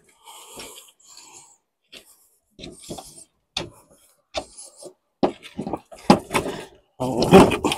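Camp gear being handled and set down: a run of separate knocks, clicks and short scraping rubs, with a louder clatter near the end.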